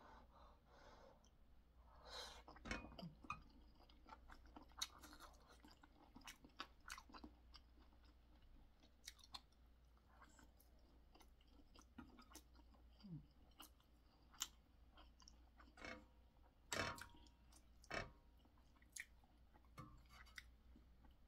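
A person chewing spicy boneless chicken feet. Soft, irregular mouth smacks and clicks come at uneven intervals over a quiet background.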